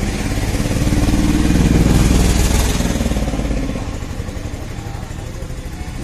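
Motorcycle engine running close by with a steady pulsing beat, growing louder to a peak about two seconds in, then dropping back to a lower, steady level.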